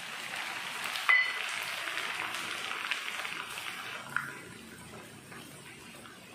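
Cornflakes deep-frying in hot oil, a steady sizzle that quietens after about four seconds. A wire skimmer stirring them clinks sharply against the pan about a second in and more softly about four seconds in.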